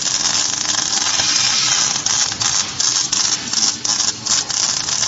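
Arc welding torch on a CNC welding carriage, running a continuous arc that throws spatter: a loud, dense crackling sizzle that pulses unevenly.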